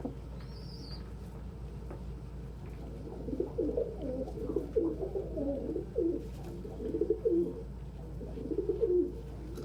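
Pigeons cooing: a run of low, rolling coos that starts about three seconds in.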